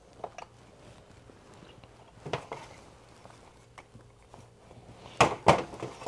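Objects being shifted and knocked about on metal shelving as someone rummages: a few light knocks, then two loud sharp knocks close together near the end.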